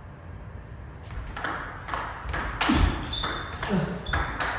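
Table tennis rally: the celluloid-type ball clicking off the rackets and bouncing on the table in a quick run of sharp pings, two to three a second, starting about a second in.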